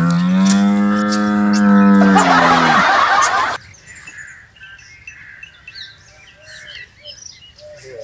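A cow mooing once: a long, low call of nearly three seconds that rises at the start and drops at the end, running into a breathy rush that cuts off suddenly. Faint bird chirps follow.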